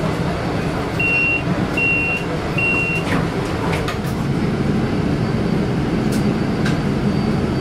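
City bus running, heard from inside the passenger cabin: a steady engine and road rumble, with three short, evenly spaced high electronic beeps about a second in.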